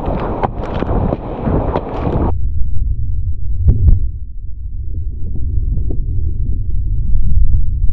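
Wind buffeting the microphone: a steady low rumble with crackle and sharp clicks in the first couple of seconds, then only the low rumble with a few faint knocks.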